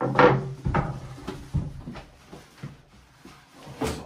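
A tall wooden shelf unit being handled and shifted into position, its frame knocking and scraping. There is a loud knock at the start, several lighter knocks, and another loud one near the end.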